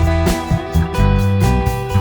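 Background music: guitar-led instrumental with a steady bass line.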